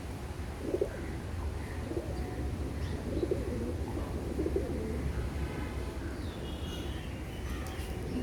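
Pigeons cooing, several low calls spread through, with faint higher chirps near the end over a steady low rumble.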